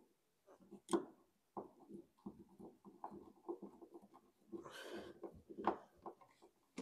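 Hand screwdriver driving a screw through a plastic pipe clip into the wall: irregular small creaks and clicks as the screw turns, with a sharper click about a second in and a short scraping sound around five seconds.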